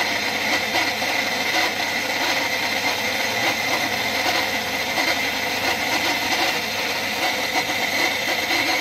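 YORK PS-100 NA electric water pump running with a steady, very rough and noisy grinding and a high whine through it: the sign of its worn, rusted motor bearing.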